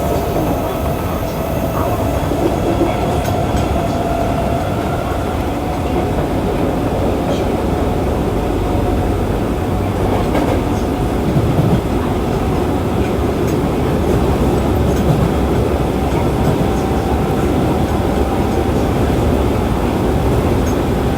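Osaka Metro 25 series subway car running in the tunnel: steady wheel-and-rail rumble with a faint, steady whine from its Hitachi IGBT VVVF traction inverter and motors, and occasional light clicks from the track.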